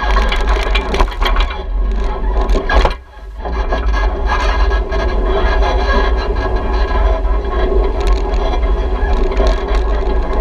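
Off-road UTV or ATV riding a rough trail: a heavy low running rumble with frequent knocks and rattles, and a brief drop in level about three seconds in.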